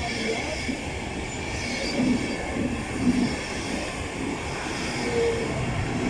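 A train running through a station on the rails, a steady continuous rail noise with high-pitched wheel sound over it.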